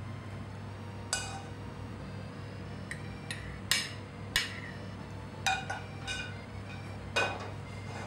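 Metal spoon clinking against a frying pan and a china plate as vegetables and sauce are spooned out: about eight sharp clinks with short ringing, irregularly spaced, over a steady low hum.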